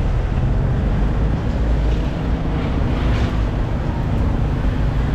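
Steady street noise in the rain: car traffic running past, with wind rumbling on the microphone.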